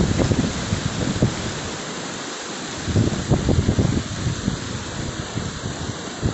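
Steady hiss of heavy storm rain, with wind buffeting the microphone in low gusts at the start and again about three seconds in.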